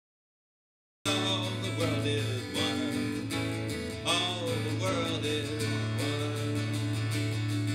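A man singing while strumming an acoustic guitar, starting abruptly about a second in after silence.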